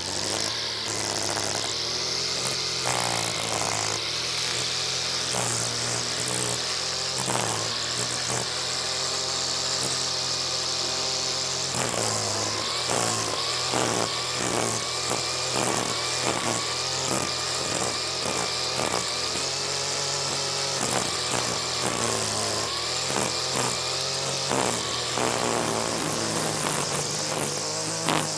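Hedge trimmer running with its motor pitch rising and falling, and a regular pulsing in the sound from about halfway through.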